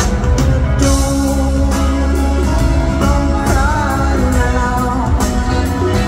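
A live rock band playing: electric guitars, bass, drums and keyboards in a full, steady mix with a heavy bass, heard from out in the audience.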